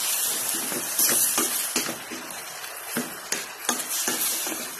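Wooden spatula stirring sautéed pork pieces in a stainless steel frying pan: a steady sizzle with repeated scrapes and knocks of the spatula against the pan.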